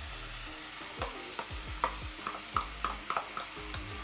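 A wooden spoon stirring chopped tomatoes in a frying pan, with short scrapes and knocks against the pan about every half second over a low sizzle of frying.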